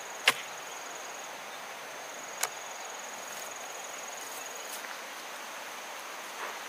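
Two sharp knocks of a bamboo pole being jabbed into the ground, the louder about a quarter second in and a second about two and a half seconds in, over a steady high-pitched insect trill that breaks off twice.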